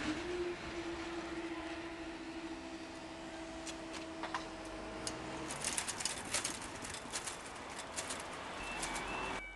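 Level crossing barrier rising after a train has passed: a steady motor hum from the barrier drive for about five seconds, stopping as the boom comes upright, then a run of sharp clicks and knocks.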